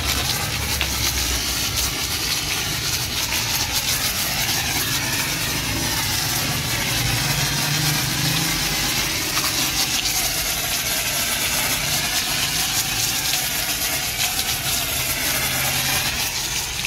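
Pressure washer running with a steady hiss of spray over a low motor hum; it stops abruptly at the very end.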